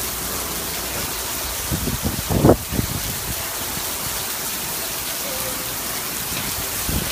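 Heavy hurricane rain pouring steadily onto pavement and parked cars. A short, louder low rumble comes about two and a half seconds in.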